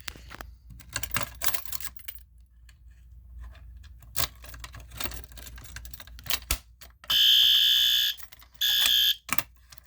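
Clicks and knocks of a Simplex fire alarm pull station being worked, then a fire alarm horn sounds twice near the end: one blast of about a second, a short pause, then a shorter blast before it cuts off.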